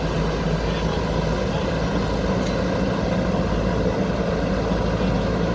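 Diesel engine of a JCB backhoe loader running steadily at an even pitch and level.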